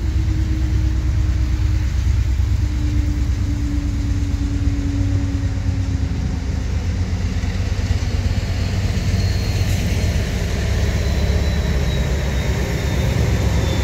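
GE Dash 8-40CM diesel locomotive approaching at the head of a freight train, its engine giving a steady low rumble with a humming note that slowly drops in pitch during the first half. A faint high whine joins about two-thirds of the way through.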